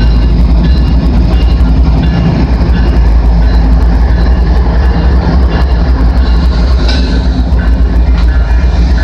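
Canadian Pacific freight train passing at close range: the steady, loud low rumble of GE ES44AC diesel locomotive 8951 and its wheels on the rail, giving way to autorack cars. A grade-crossing bell rings about twice a second over it.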